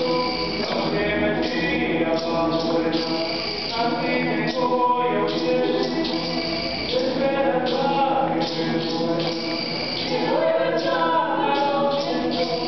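Small mixed choir of men and women singing together in held chords.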